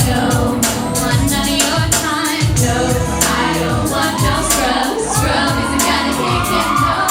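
Pop music with a group singing over a steady drum beat.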